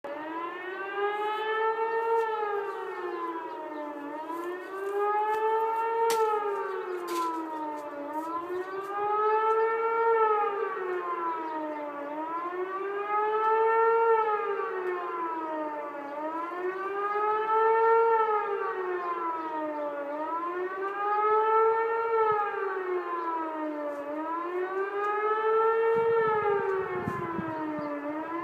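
Civil defence siren sounding a steady rising-and-falling wail, one rise and fall about every four seconds, in its yearly test to check that the alarm works.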